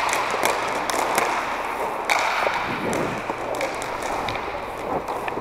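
Inline hockey skate wheels rolling and scraping on a plastic sport-court floor, with many sharp clacks of sticks and puck.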